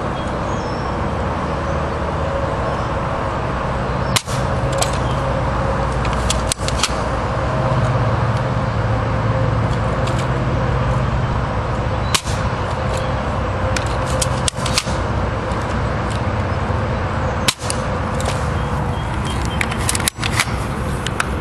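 Airsoft M14 rifle firing several single shots a few seconds apart, each a short sharp snap, over a steady low rumble.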